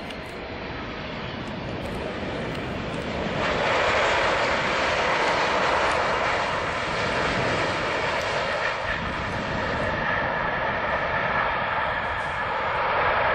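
Jet engines of a four-engined Boeing 747 landing: a steady jet noise that grows as the airliner passes low overhead, becoming loud about three and a half seconds in and staying loud through touchdown and rollout, swelling again briefly near the end.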